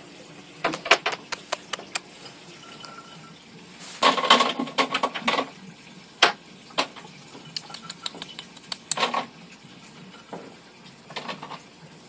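Quick wet lip-smacks and tongue clicks from a person imitating squirrel noises to coax a reluctant baby squirrel to feed, coming in clusters about a second in, around four to five seconds in and again around nine seconds in.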